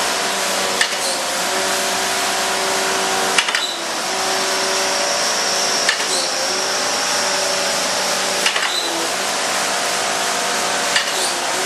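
Mattison hydraulic surface grinder running, with the steady hum and whine of its hydraulic system and wheel spindle. About every two and a half seconds there is a short click with a brief dip in the hum, as the hydraulic table reverses at its trip strips.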